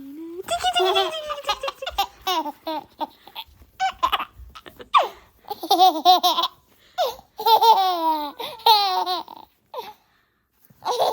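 A baby laughing hard while being tickled, in repeated high-pitched bursts of giggles with short breaths between them.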